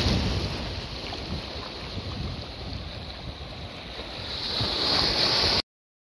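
Shallow sea waves washing and breaking right next to the microphone: a loud rush at the start, easing in the middle and swelling again toward the end before the sound cuts off suddenly.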